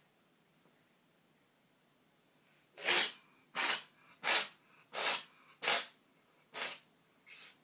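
A cat having a sneezing fit: six sharp sneezes in quick succession, starting about three seconds in and coming roughly two-thirds of a second apart, then a weaker seventh near the end.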